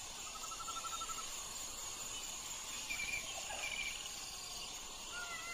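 Forest ambience: a steady high insect drone with birds calling over it, a rapid trill about a second in, short trills a few seconds later, and a run of arched whistled calls starting near the end.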